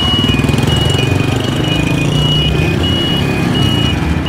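Small motorbike engine running as the bike pulls away from a stop and rides on. Over it, an electronic beeper repeats a high tone then a lower one, over and over, typical of a motorbike turn-signal buzzer.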